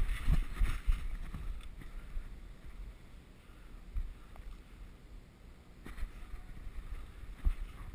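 Wind buffeting a body-worn camera's microphone as the wearer walks a dirt forest track, with footfalls and gear rustling. The thumps are heaviest in the first second, with a few more later on.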